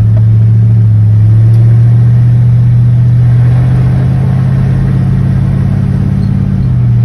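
A 1939 Ford truck's engine and exhaust, heard from inside the cab while driving at a calm cruise: a steady low drone whose pitch shifts slightly near the end.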